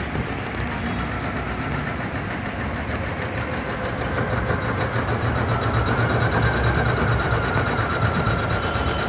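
Usha Janome Memory Craft 450-E computerized embroidery machine running, its needle stitching an embroidery design in a fast, even rhythm. The sound grows a little louder about four seconds in.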